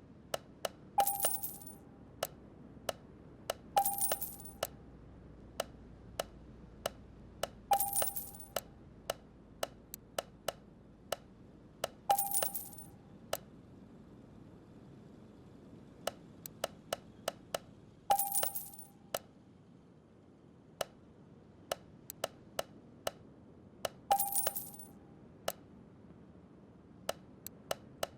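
Light metallic ticks and clicks throughout, with a louder ringing metal clink every four to six seconds.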